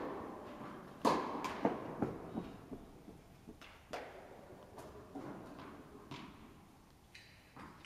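Tennis rally on an indoor court: a tennis ball struck by a racket with a sharp pock about a second in, followed by a few lighter ball bounces, then another clear hit about four seconds in and fainter bounces later. Each impact rings on in the echo of the large hall.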